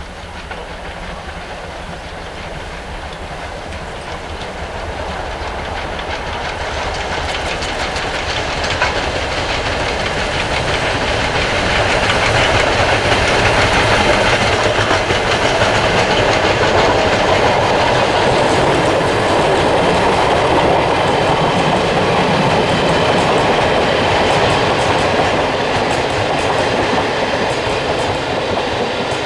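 Steam-hauled passenger train approaching and passing, its wheels clattering over the rail joints. It grows steadily louder over the first dozen seconds and stays loud until near the end.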